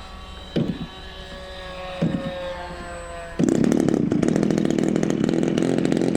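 A small model-aircraft engine bursts into life about three and a half seconds in and runs loud and raspy, with a fast buzzing pulse; before it two short knocks are heard over a faint, slowly falling tone.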